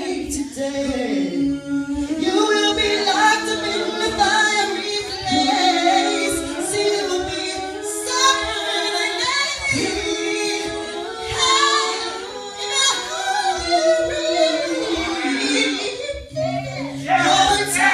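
Small vocal group singing together in harmony through microphones and a PA, with long held notes.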